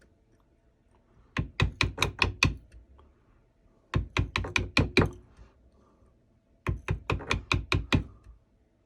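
A small wood-carving chisel tapped in quick strikes, chipping wood out of a carved outline in a rifle stock. The taps come in three runs of about seven sharp strikes each, at roughly six a second, with short pauses between.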